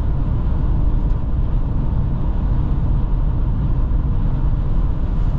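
Steady low rumble of tyres on asphalt, engine and wind from a car driving along at speed, heard from inside the cabin, with a faint steady whine.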